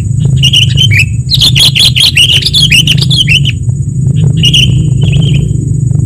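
Sooty-headed bulbuls (kutilang) calling in a rapid, chattering jumble of short calls, densest from about one to three and a half seconds in and again briefly around five seconds. A steady low hum and a thin high whine run underneath.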